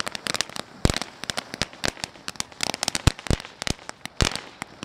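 Ground fountain firework burning, spraying sparks with a steady hiss and many rapid, irregular crackling pops.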